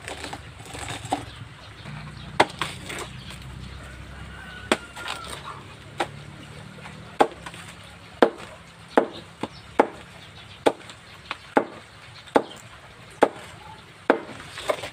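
A large knife chopping a fresh banana trunk into pieces against a wooden board: sharp chops, a few spaced out at first, then steadily about one a second through the second half.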